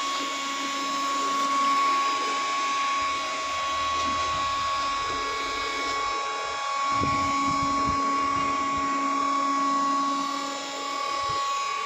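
Electric heat gun running with a steady high whine, warming a dented plastic car bumper to soften it for reshaping.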